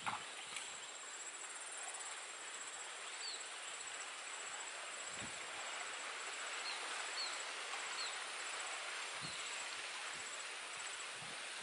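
Forest ambience: a steady, pulsing high insect trill over a soft hiss, with a few short high chirps from about three seconds in and a couple of soft footfalls on the stream rocks.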